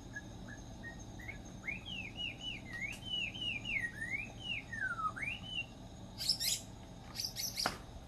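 A songbird singing: a few short whistled notes, then a quick run of clear notes swooping up and down, ending in a long downward slur about five seconds in. Near the end come two brief bursts of harsh, scratchy notes.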